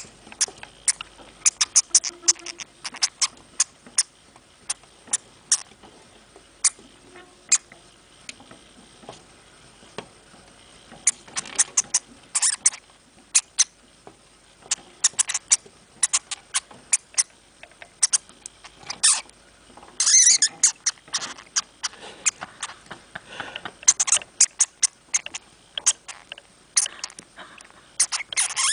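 Hamster making quick, irregular clicks and scratchy rustles, sometimes single and sometimes in dense flurries.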